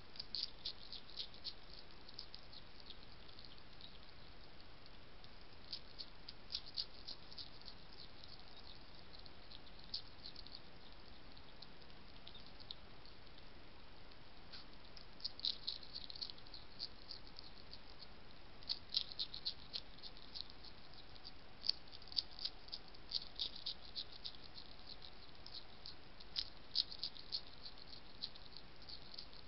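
European hedgehog crunching and chewing food, in irregular runs of crisp clicks over a steady hiss.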